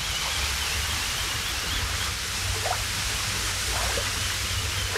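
Wind buffeting the microphone: a steady hiss with a fluttering low rumble.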